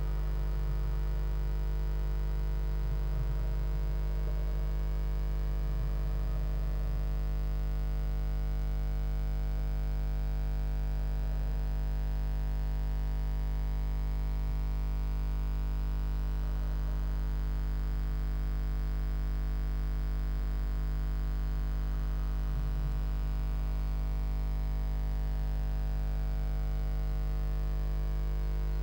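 Steady electrical mains hum with a stack of overtones, picked up on the nest-box camera's audio. A few faint rustles from the blue tit shifting in its moss nest come through underneath.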